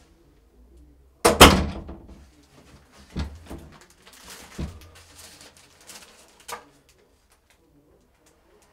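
A door shuts with a heavy thud about a second in. After it come the crinkles and small clicks of a bouquet's clear plastic wrapping being handled.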